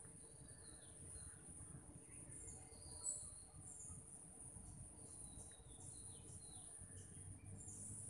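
Faint, steady high-pitched drone of insects, crickets by their sound, with scattered short bird chirps and quick falling notes, more of them in the second half. A single sharp click about three seconds in.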